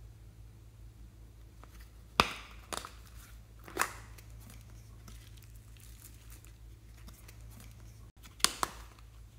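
Hard plastic compartment container clicking and snapping as it is handled and its lid is opened: a few sharp clicks about two and four seconds in, and a quick pair near the end.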